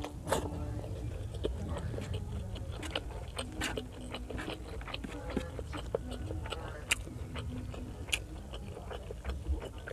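Close-miked mouth sounds of a person chewing a mouthful of pork liver igado and rice: wet smacks and clicks scattered throughout, over a low steady hum.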